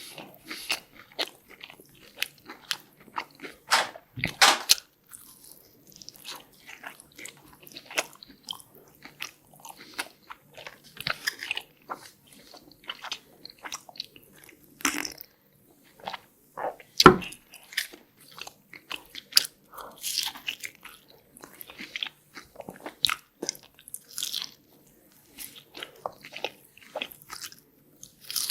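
Close-miked biting and chewing of Hot Cheetos-crusted mozzarella corn dogs: irregular sharp crunches of the fried, Cheeto-crumb coating, with a few louder bites about four seconds in and just past halfway.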